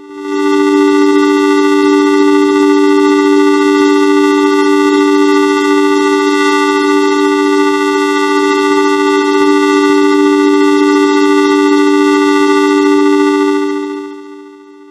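Sustained electronic chord of several steady, unwavering tones, a logo jingle heavily altered by audio effects into a drone. It swells in at the start, holds loud, and fades out near the end.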